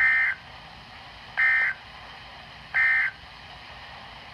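Three short bursts of EAS/SAME digital data tones, each a brief warbling two-tone buzz about a second and a half apart, over a low radio hiss. These are the end-of-message (EOM) bursts that mark the close of the weather radio alert.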